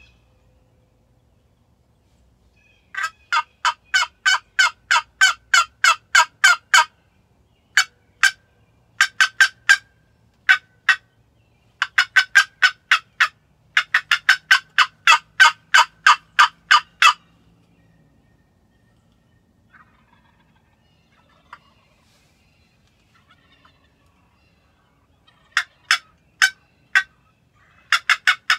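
Wooden turkey box call scraped in runs of quick, high, raspy turkey-like notes, about three or four a second, used to call in gobblers. The runs stop for several seconds past the middle and pick up again near the end.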